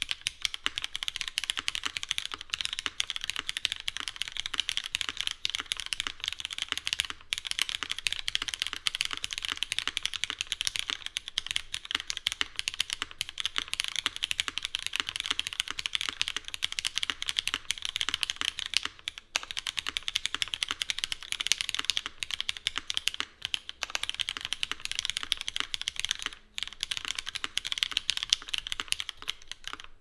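Continuous fast typing on a Cloudline mechanical keyboard with lubed, filmed Cherry MX Black linear switches, an aluminium plate in an O-ring mount, and GMK ABS keycaps: a dense stream of keystrokes with a couple of short pauses.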